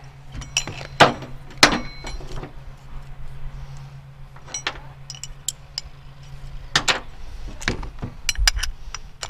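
Metal parts of the sawmill's track feet (threaded rods, round foot plates, nuts) clinking and knocking sharply against each other and the table as they are handled and fitted together. A low steady hum underneath stops about seven seconds in.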